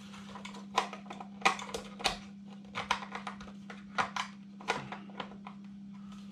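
Scattered plastic clicks and taps from a Radiolink RC6GS V2 pistol-grip transmitter as its battery compartment cover is worked back into place by its tab, about a dozen sharp clicks in all. A steady low hum runs underneath.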